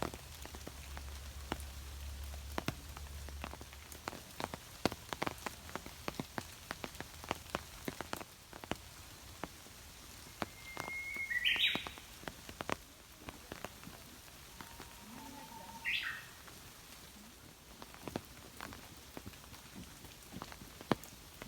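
Steady rain with many sharp raindrop drips, and a bird calling twice, briefly, about halfway through and again about five seconds later.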